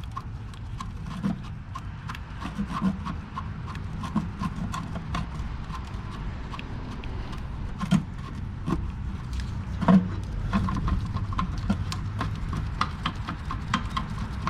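Irregular metallic clicks and knocks as the last starter bolt is taken out and the starter motor is worked loose and pulled free, with two heavier clunks around 8 and 10 seconds in.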